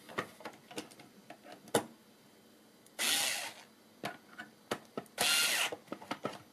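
Bosch cordless screwdriver driving screws into wood in two short runs of about half a second each, about three and five seconds in, with light clicks and knocks of handling between.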